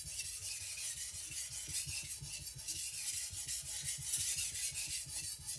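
Steel edge of a Victorinox Chinese cleaver scraping back and forth on a whetstone in quick, even strokes, grinding the bevel at a low angle.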